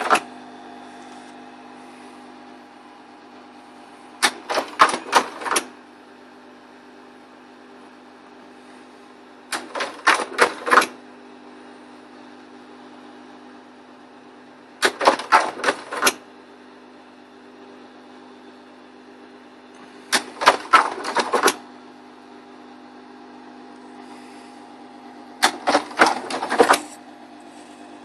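Slide projector changing slides automatically on a microcontroller's trigger: a short burst of mechanical clicks and clatter from the slide-change mechanism about every five seconds, five times, over the projector's steady hum.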